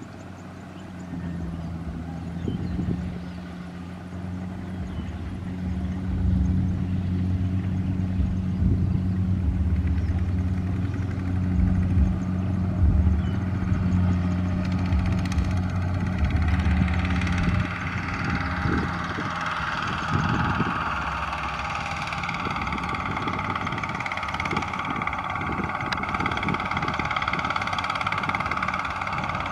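Two-wheel walking tractor's single-cylinder diesel engine running steadily while hauling a heavily loaded trailer. After about 16 seconds a higher-pitched engine sound comes in and stays to the end.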